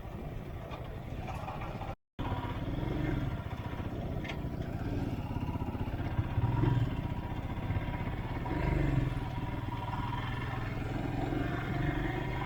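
Royal Enfield Himalayan's 411 cc single-cylinder engine running while riding, with wind buffeting the action camera's built-in mic. The sound cuts out completely for a moment about two seconds in.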